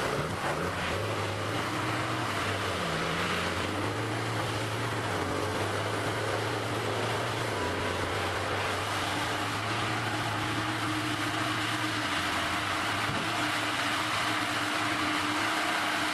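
A machine engine running steadily, an even mechanical noise with a low hum that holds throughout.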